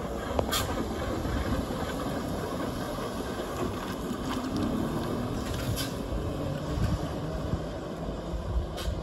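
Vintage three-axle trolleybus passing close by and driving away, a steady low rumble with a few faint clicks.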